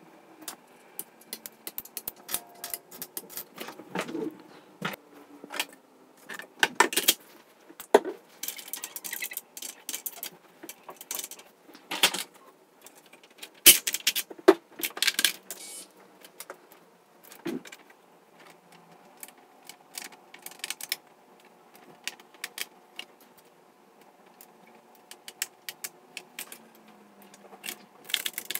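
Irregular plastic clicks, taps and knocks from handling a GM truck instrument cluster: the gauge face plate is fitted over the board and the needles are pressed back onto the stepper-motor shafts.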